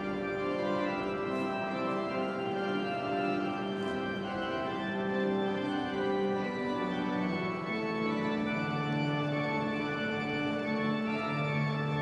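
Organ playing slow, sustained chords that change every few seconds, with a deeper bass note coming in during the second half.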